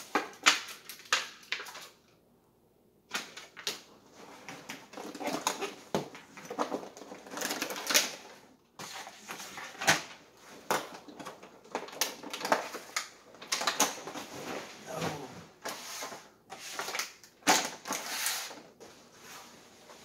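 Plastic food packaging crinkling and rustling as groceries are pulled out of a fabric bag and set down on a wooden table, with irregular crackles and light knocks. There is a short pause about two seconds in.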